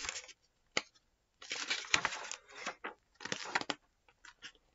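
Pages of a paperback picture book being turned and handled close to the microphone: a sharp tap about a second in, then two stretches of rustling, crackling paper, and a few fainter rustles near the end.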